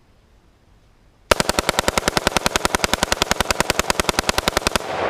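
Semi-automatic rifle bump fired: a long unbroken string of rapid shots, about eleven a second, starting abruptly after a second of quiet and cutting off near the end, with the echo dying away after the last shot.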